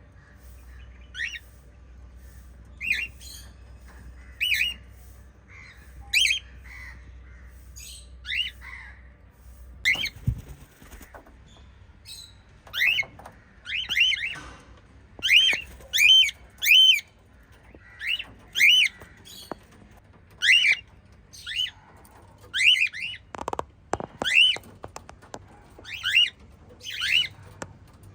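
Small pet parrots giving short, shrill chirps, one at a time and a second or two apart at first, then faster and louder from about halfway, some in quick pairs. A dull thump about ten seconds in.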